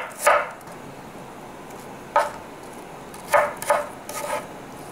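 Kitchen knife slicing peeled apple on a wooden chopping board: separate knocks of the blade on the board, one just after the start, one about two seconds in, a quick pair a little later and softer taps near the end.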